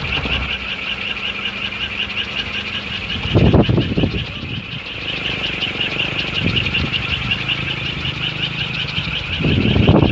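Kolecer, a wooden wind propeller on a pole, spinning in strong wind with a low steady hum, under a continuous high, rapidly pulsing chirr. Gusts of wind rush across the microphone about three and a half seconds in and again near the end.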